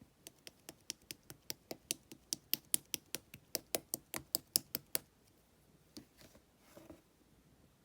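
Slime being worked by hand, giving a rapid, even run of sharp clicking pops, about five a second, for about five seconds. A few softer squelches follow near the end.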